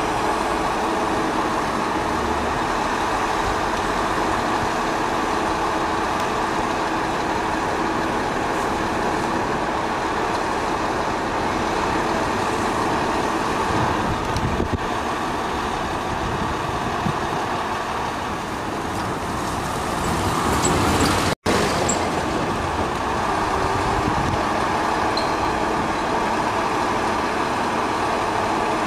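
Scania 420 truck's diesel engine running steadily while it powers the hydraulics of its 36-metre aerial work platform. The sound cuts out for an instant about three-quarters of the way through.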